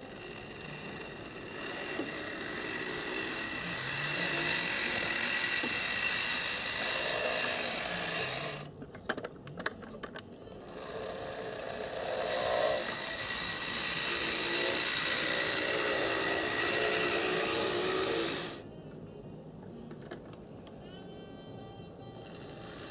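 HO-scale Bowser Union Pacific Challenger 4-6-6-4 model locomotive running along the track: its small electric motor and gearing whine, with the wheels rattling on the rails. The sound swells as the engine comes near. About nine seconds in it drops with a few sharp clicks, then it swells again and falls away suddenly about eighteen seconds in.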